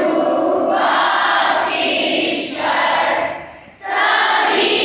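Large group of school students singing a prayer in unison, pausing briefly a little past three seconds in before going on.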